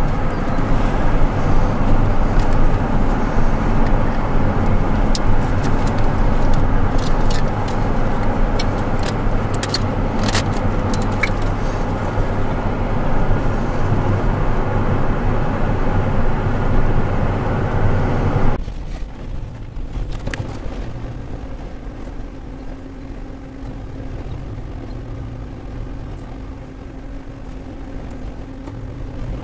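Road and engine noise heard from inside a moving car, with scattered sharp ticks; about two-thirds of the way through it drops suddenly to a much quieter steady low rumble.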